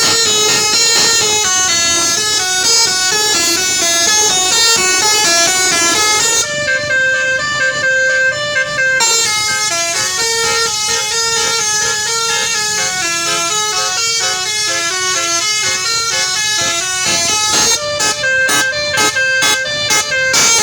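Bus basuri (telolet) musical air horn playing a melody of quick stepped notes. It holds a few longer notes about seven to nine seconds in and ends with a rapid run of short staccato blasts.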